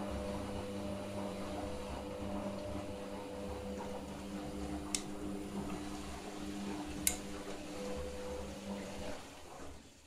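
Candy GO 510 washing machine drum turning wet laundry in water, its motor running with a steady whining hum, then winding down to a stop near the end. Two sharp clicks about halfway through.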